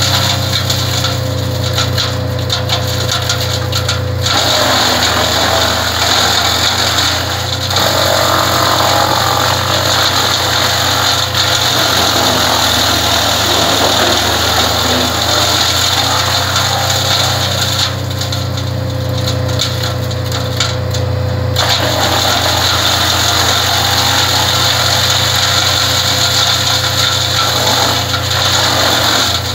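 Vermeer BC 200 disc wood chipper running at steady speed, chewing through branches fed into it and blowing the chips out of its discharge chute. The chipping noise eases briefly about two-thirds through, then picks up again.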